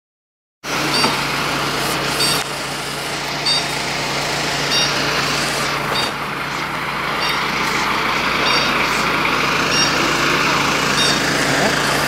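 Parked fire engines with their engines running steadily, a constant low hum under a broad noise. A short high beep repeats about every second and a quarter.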